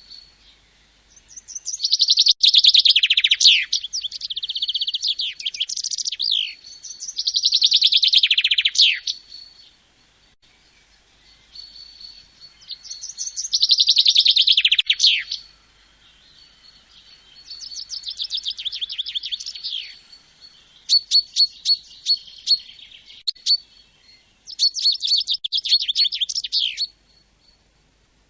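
Songbird singing repeated phrases of rapid, high trills, each a couple of seconds long and ending in quick falling notes, with short pauses between phrases. A thin, steady high tone runs underneath.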